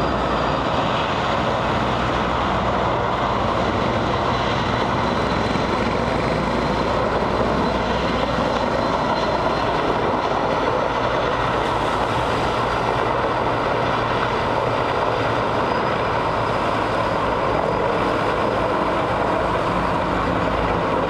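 Erickson S-64 Air-Crane helicopter hovering low over water, its twin turbine engines and main rotor running steadily with a faint high turbine whine, while it draws water into its tank through its snorkel.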